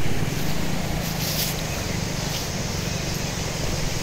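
A vehicle engine running with a steady low drone.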